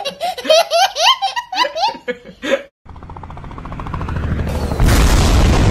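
A toddler laughing in quick giggling bursts. After a short pause, a fast rattling noise grows louder and breaks into a loud explosion sound effect about five seconds in.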